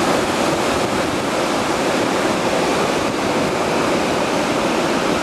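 Steady rush of breaking surf, with wind buffeting the microphone.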